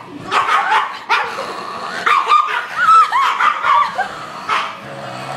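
Small dog barking and yipping over and over in short, high-pitched calls, a few each second, some with a bending, whiny pitch.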